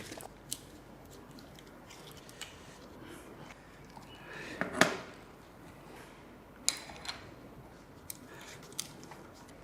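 Scattered clicks and knocks of an electric scooter's handlebar being handled and fitted in place, with a louder knock about five seconds in.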